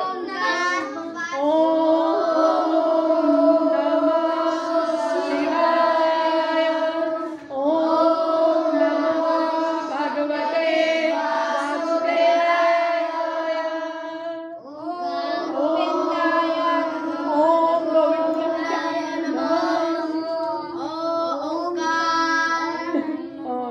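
A group of children singing together in unison, in long held notes, with brief breaks between phrases about seven and fourteen seconds in.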